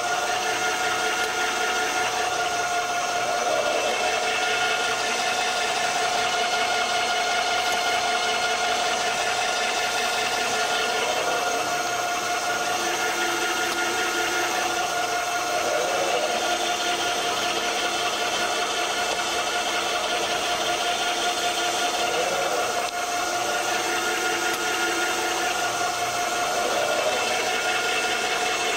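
Automated assembly machinery running: a continuous mechanical hum and whine on one steady tone over a noisy rattle, with faint swells recurring every few seconds.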